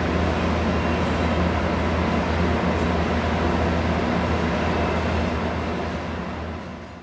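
A freight train's diesel-electric locomotive, running mid-train, passing close by with the wheels of double-stack container well cars rumbling on the rails. Under the rumble is a steady low engine drone. The sound fades out near the end.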